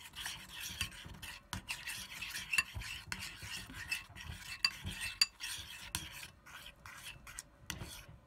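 Metal spoon stirring a thick, sticky mix of glue and laundry detergent as it turns into slime in a bowl: irregular scraping and stirring with frequent short clicks of the spoon against the bowl.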